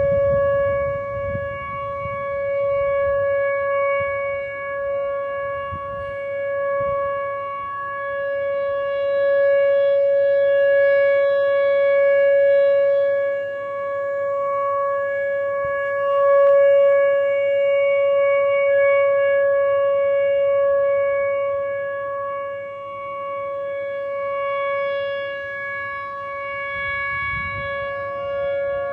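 Outdoor tornado siren sounding a steady, unchanging pitch during a monthly test, its loudness slowly swelling and fading.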